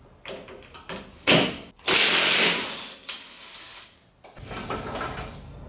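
Cordless 1/2-inch impact wrench on a 27mm socket, run in a short burst of under a second about two seconds in to break loose an ATV rear axle spindle nut, after a sharp metallic knock. A lower rumble follows near the end.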